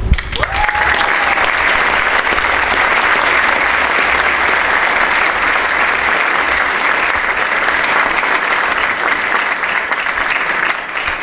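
Audience applauding, an even spread of clapping that starts at once, holds steady and dies away near the end.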